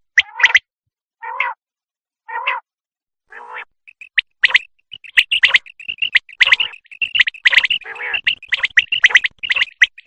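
Common quail calling: in the first few seconds, three softer, lower notes about a second apart, then from about four seconds in a dense run of sharp, quickly repeated call notes.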